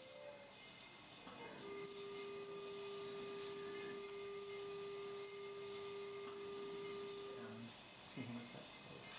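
Electrosurgical unit's steady activation tone as the needle-tip electrosurgery pencil cuts gum tissue. A brief higher tone ends right at the start, then a lower steady tone holds for about six seconds over a faint hiss.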